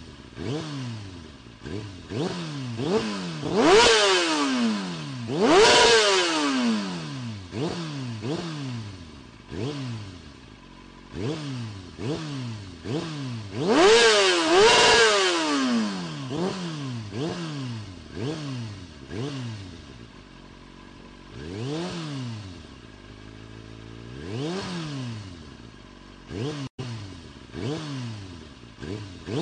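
An engine revving over and over, its pitch climbing and dropping about once a second, with louder, higher revs twice and a brief cut-out near the end.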